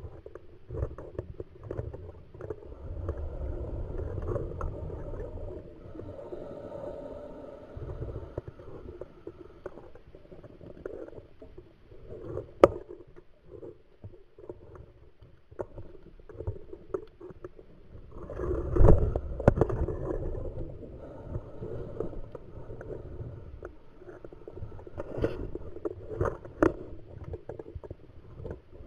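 Scuba diver's exhaled bubbles from the regulator gurgling and rumbling underwater in bursts every several seconds, the biggest about two-thirds of the way in. A single sharp click comes near the middle.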